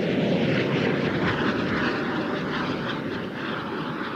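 KillaJoule electric streamliner sidecar motorcycle running at speed on the salt: a steady rushing sound with no engine note, easing slowly as it draws away.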